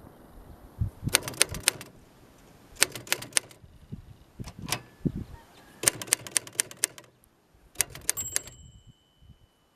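1963 Royal Empress manual typewriter being typed on: quick bursts of sharp key strikes with short pauses between words. Near the end a thin ringing tone lingers after the last strokes.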